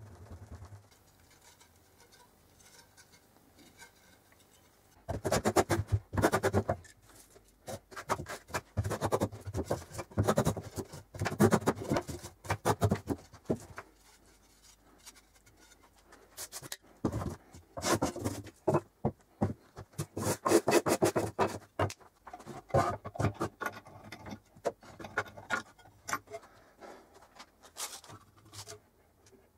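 Runs of rapid scraping strokes of a hand tool shaping a wooden hammer handle, each run lasting a few seconds with short pauses between, starting about five seconds in.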